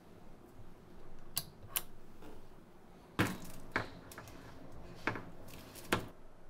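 A plastic-lined trash bin being handled: a few sharp clicks and knocks, the loudest about three seconds in, with more near the end.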